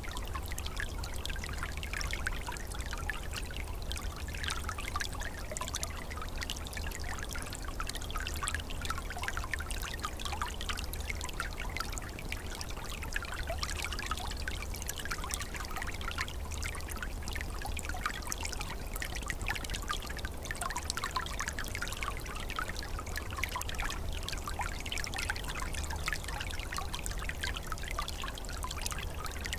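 Small shallow stream trickling and babbling over stones, a steady run of little splashes and gurgles.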